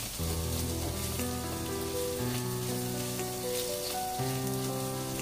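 Background music of slow held notes starts just after the opening, over a steady sizzle of dried chillies, garlic and ginger frying in oil in a wok.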